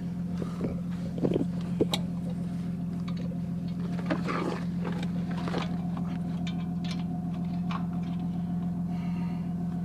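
An engine running steadily, with a few sharp clicks and knocks from work going on, the clearest a little past one second in and just before two seconds.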